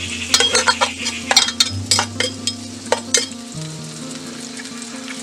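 Sliced red onions sizzling in hot oil in a metal pot, with a metal ladle scraping and clinking against the pot as they are stirred. The stirring clicks stop a little past halfway, leaving the steady sizzle.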